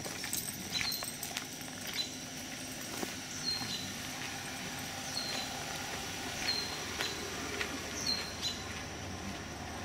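A bird repeats a short, falling chirp about once a second over a steady high insect drone, with footsteps crunching on a gravel path.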